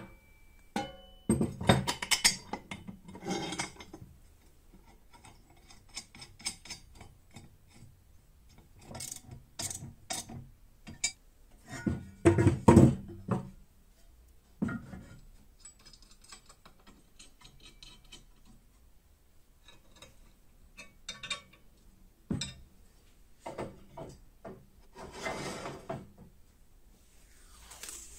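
Steel belt-grinder parts being handled and set down on a wooden workbench: scattered clinks, knocks and scrapes in separate clusters. Near the end, protective film tearing as it is peeled off the grinder's steel table.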